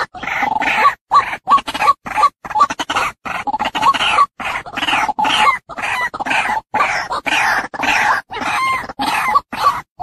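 White-breasted waterhen giving its harsh, raspy 'ruak-ruak' calls over and over in a fast, loud run, with short breaks between phrases. It is played as a bird-trapping lure call.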